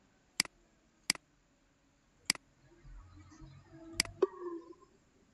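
Computer mouse clicks: five sharp single clicks at uneven intervals, the last two close together about four seconds in, over a faint low murmur.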